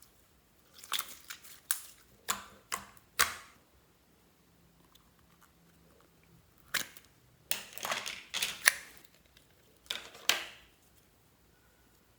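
Slime being squished and kneaded by hand, giving sticky clicking pops in two bursts: a handful of pops near the start and a denser run in the second half.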